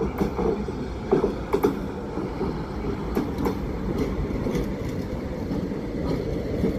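ÖBB class 2016 'Hercules' diesel-electric locomotive passing close by, its diesel engine running steadily, with sharp clicks from the wheels over the rail joints.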